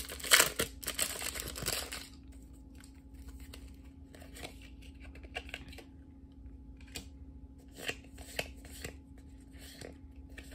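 A Pokémon booster pack's foil wrapper crinkling and tearing as it is pulled open, loud for about the first two seconds. Then the soft clicks and slaps of trading cards being flipped through one at a time.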